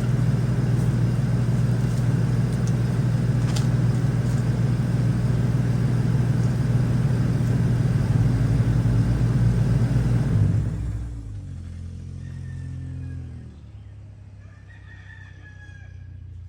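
A loud, steady mechanical rumble with a low hum cuts off about ten seconds in. After it, a rooster crows twice.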